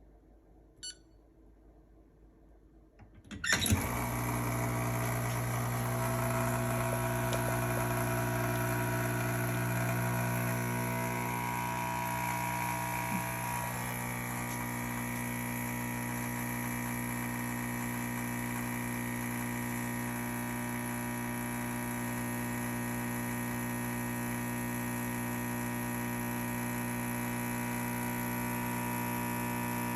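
Profitec Pro 600 espresso machine's rotary pump running through an espresso shot: a small click about a second in, then the pump starts with a clunk about three and a half seconds in and runs as a steady hum with a whine, its tone shifting slightly around ten to thirteen seconds in.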